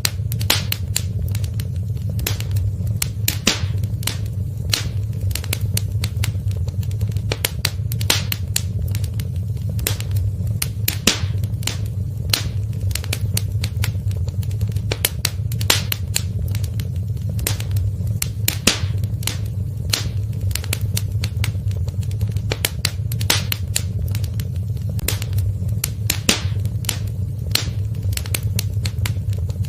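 Wood fire in a fireplace crackling: frequent irregular sharp pops and snaps over a steady low rumble.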